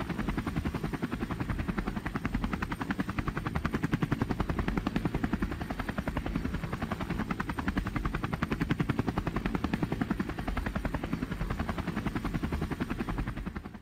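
Helicopter rotor chop: a rapid, even beat of blade slap with engine noise underneath, steady throughout and cutting off suddenly at the end.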